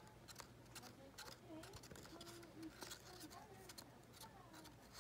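Faint scraping and ticking of a wooden tongue depressor stirring feces and tap water in a paper cup, breaking up the stool into an even slurry. Faint voices are heard in the background.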